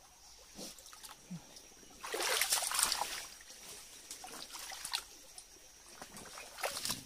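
Hands digging in a water-filled crab burrow in mud, muddy water sloshing and trickling, with a louder burst of splashing about two seconds in that lasts about a second.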